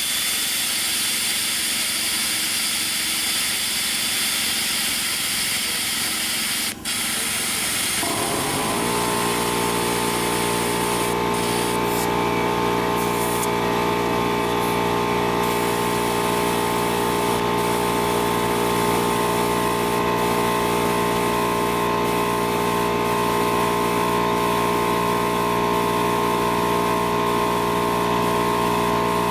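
Compressed air hissing steadily while kart tires are set to about 15 psi. About eight seconds in, a motor spins up and runs with a steady hum.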